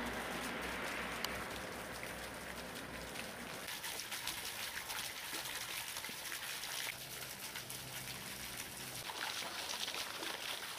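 Water from a garden fountain jet falling and splashing into its basin: a steady hiss of splashing and trickling water.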